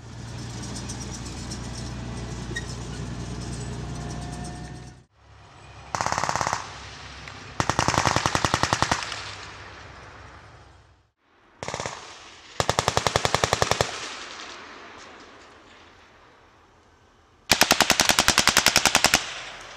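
Automatic weapons firing on a range: five bursts of rapid, evenly spaced shots, some short and some lasting a second or two, each followed by an echo. Before the first burst, about five seconds of a steady low mechanical rumble.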